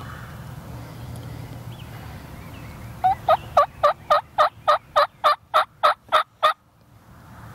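A series of about a dozen loud turkey yelps, roughly three a second, each note dropping in pitch. They start about three seconds in and stop abruptly after about three and a half seconds.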